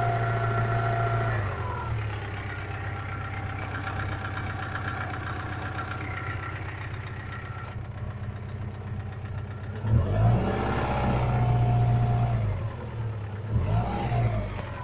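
Subaru flat-four boxer engine coming down from raised revs to idle, idling steadily, then revved and held for a couple of seconds and blipped once more near the end. The engine has a knock that the owner is recording.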